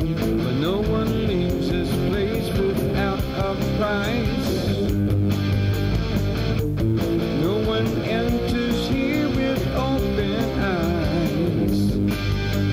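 Rock music led by guitar, with a melody line that bends and slides in pitch over a steady band backing.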